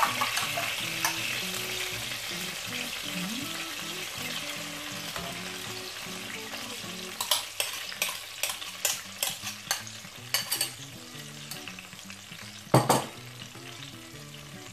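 Hot vegetable oil sizzling in a frying pan as beaten egg is poured onto sliced bell pepper; the sizzle is strongest at first and fades as the egg settles. A run of sharp clicks from a fork scraping the last egg out of a glass bowl follows, then a single loud knock near the end.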